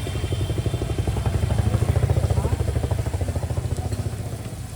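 Motorcycle engine running close by with a fast, even pulse, getting louder to a peak about two seconds in and then fading as it passes.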